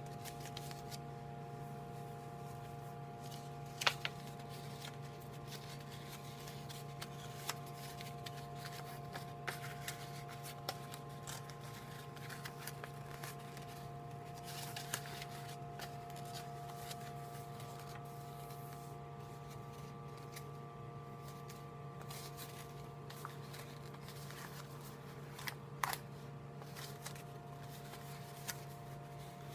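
Paper rustling and crinkling as it is folded and creased by hand, with sharp crackles about four seconds in and again near the end, over a steady electrical hum.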